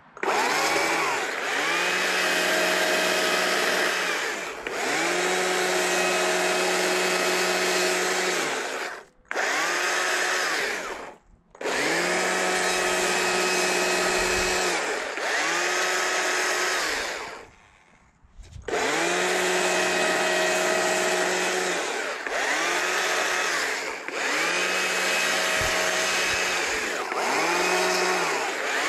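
Stihl chainsaw revving up to cutting speed and easing off again, over and over, as it makes short upward cuts into a small log to shape a mushroom cap. It drops away briefly a few times, most deeply about 18 seconds in.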